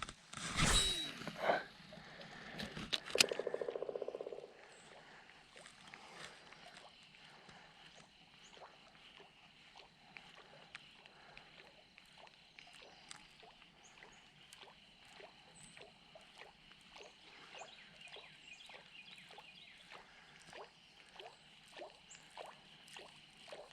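Fishing rod cast with a quick whoosh and a click, then a short burst of fast reel cranking. After that, a faint pond background with small soft ticks roughly every second.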